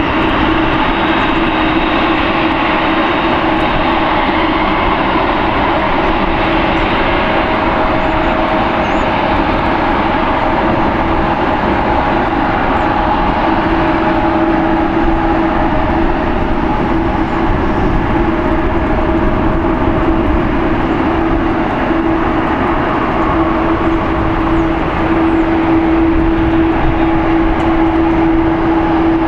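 Boeing 747-8F's four GEnx turbofan engines running, a loud, steady jet noise with a constant low hum in it that does not rise or fall.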